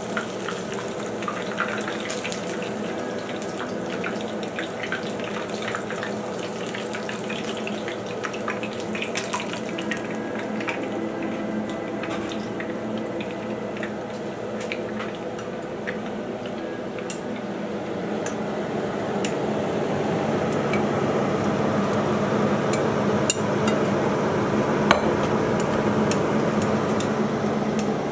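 Battered pieces deep-frying in a pan of hot oil: a steady sizzle thick with fine crackling that grows louder about two-thirds of the way in. A few clinks of chopsticks on the pan, one sharp one near the end.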